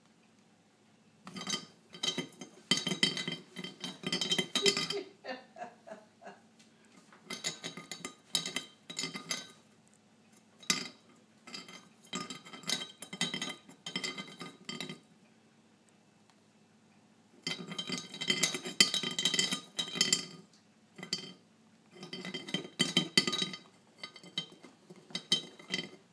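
Ceramic teapot lid clinking and rattling inside a small ceramic teapot as a cat paws at it, trying to hook it out. It comes in bursts of a few seconds of rapid clattering with a ringing tone, separated by short pauses.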